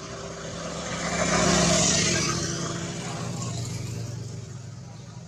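A motor vehicle driving past, growing louder to a peak about one and a half seconds in, then fading away.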